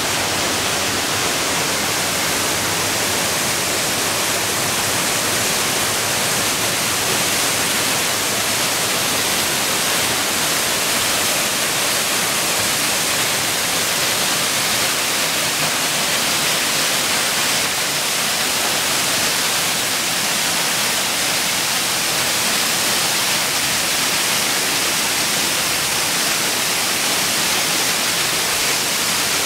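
Waterfall pouring over rock ledges: a loud, steady rush of falling water.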